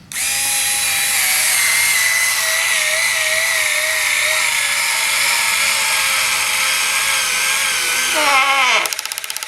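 Cordless screwdriver motor whining as it drives a screw, its pitch sagging slowly and then dropping sharply near the end as the screw seats, followed by about a second of rapid clicking from the clutch slipping.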